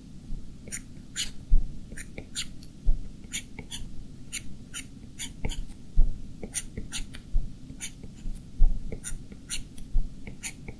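Stylus tip tapping and stroking on the glass screen of a 12.9-inch iPad Pro, in short irregular ticks and scratches a few times a second, with a few dull low knocks among them.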